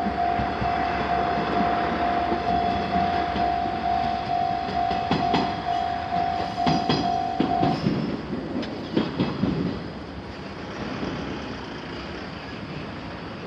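Japanese level-crossing alarm sounding an evenly pulsed electronic ding, about two a second, until it cuts off about eight seconds in. A diesel train passes with its wheels clacking over the rail joints, loudest just before the alarm stops. It then fades to a quieter rumble.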